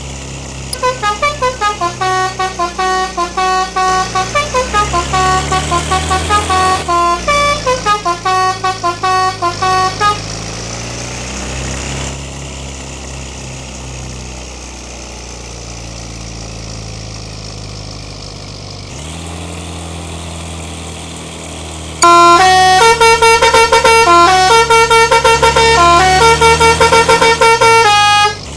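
A bus's telolet horn, a multi-tone musical air horn, plays fast stuttering melodies of several notes for about ten seconds. The bus's engine then runs alone for about twelve seconds before the horn starts a second, louder run of notes.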